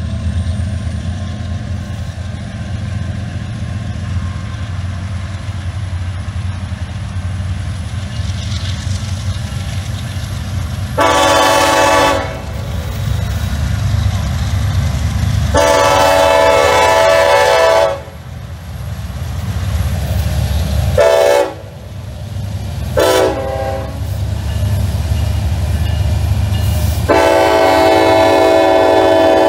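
Norfolk Southern diesel freight locomotives approaching with a steady low engine rumble, and a multi-note air horn sounding five times: two long blasts, two short toots, then a long blast near the end.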